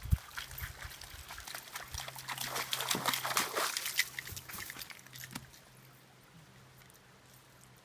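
Splashing and scuffing steps through a shallow, rocky creek, with a dense run of clicks and crackles from wet stones and water. It peaks a few seconds in and fades out after about five seconds.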